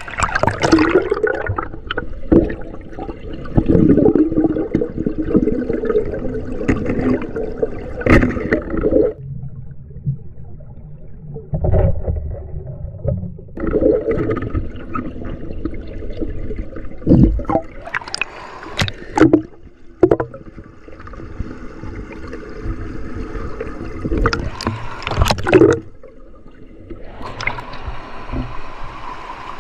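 River water gurgling and splashing close to the microphone, with sharp knocks now and then and a muffled stretch about ten seconds in.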